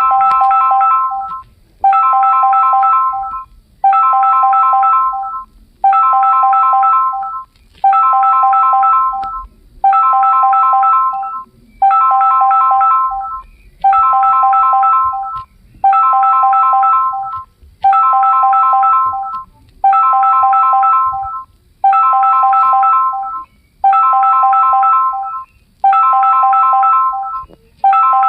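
bq phone ringtone ringing over and over: a phrase of three high tones sounding together, about a second and a half long, repeating about every two seconds with a brief gap between rings.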